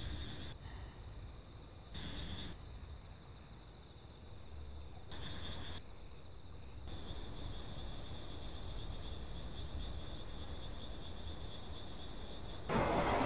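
High, steady insect trilling, like crickets, that cuts in and out abruptly in short stretches and then runs on steadily. Near the end a much louder rushing noise comes in suddenly.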